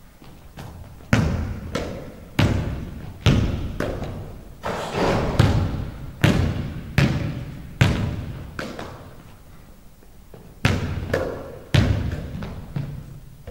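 A basketball bouncing on a hardwood gym floor, each bounce a sharp thud with a long echo in the big hall, roughly one every half second to a second. The bounces pause for about two seconds, then start again about eleven seconds in.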